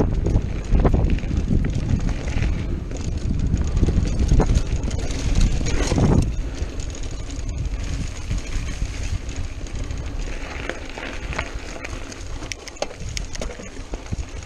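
Mountain bike riding a dirt singletrack, heard from a chest-mounted camera: wind buffeting the microphone, tyres rolling over dirt and the bike rattling and clicking over bumps. Louder through the first six seconds or so, then easing off.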